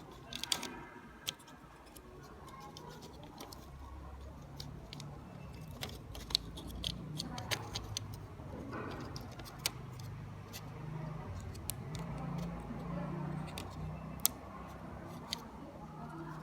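Scattered sharp clicks and taps of small plastic mouse parts being handled and fitted together, over a low background hum.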